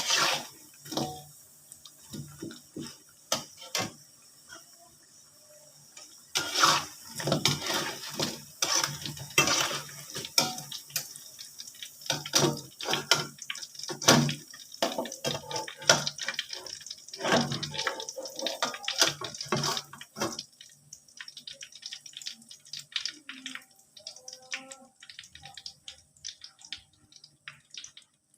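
Water splashing and sloshing in a basin with irregular knocks as cassava pieces are washed by hand, busiest in the middle, then fading to small scattered clicks and drips after about twenty seconds.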